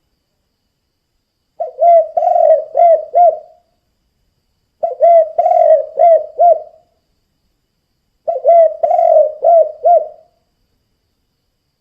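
Spotted dove cooing: three phrases of about five low coos each, every phrase lasting about two seconds, with gaps of a second or so between them.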